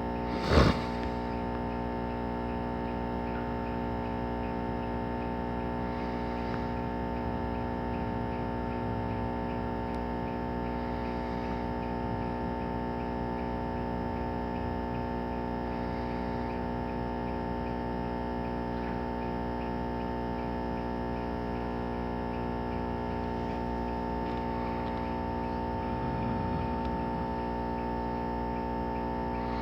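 A steady mechanical hum made of many fixed tones, holding unchanged throughout, with one short sharp knock about half a second in.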